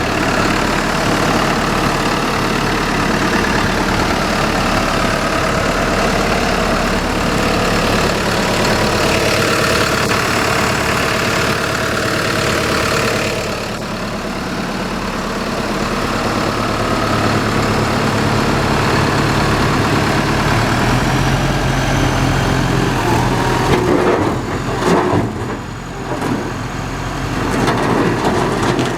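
Gehl 7810E skid steer's engine running steadily. Its sound dips about halfway through and then builds again, and a series of knocks and clanks comes near the end.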